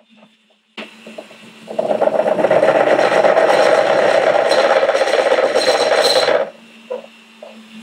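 Bench drill press with its bit grinding through the wall of a wet glass jar, a loud gritty rasp lasting about five seconds as the hole is finished. The drill's motor hum runs steadily underneath and continues on its own after the grinding stops.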